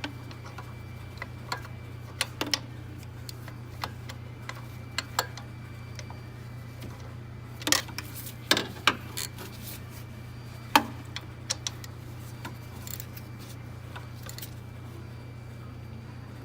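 Hand tools clicking and clinking in scattered strokes while a bolt on a car's power-steering pump bracket is tightened, with the loudest clicks bunched a little past the middle. A steady low hum runs underneath.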